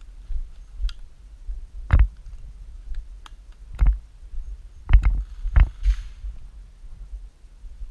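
A few sharp airsoft gun shots at uneven spacing, the loudest about 2, 4, 5 and 5.6 seconds in, over a steady low rumble of wind and movement on the camera microphone.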